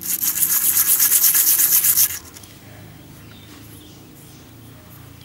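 Metal sewing machine tension disc rubbed rapidly back and forth on 360-grit sandpaper, a scratchy sanding sound of quick strokes that stops about two seconds in. The disc face is being sanded to remove rust.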